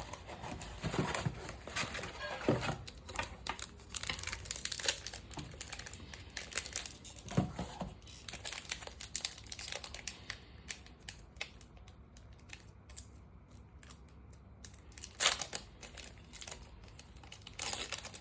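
A trading-card pack wrapper crinkling and being torn open, with irregular crackles throughout and a louder rip about fifteen seconds in.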